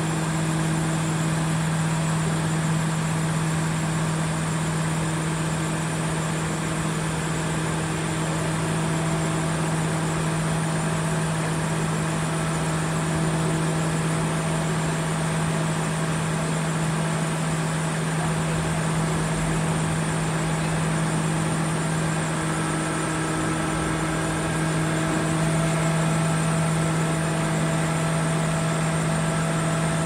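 Crane engine running steadily while hoisting a suspended load, a constant low hum with no change in speed.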